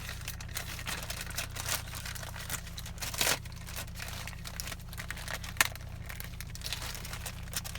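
A shipping package being opened by hand: irregular crinkling and tearing of the wrapping, with a few sharper crackles, the loudest about three seconds in and again about five and a half seconds in.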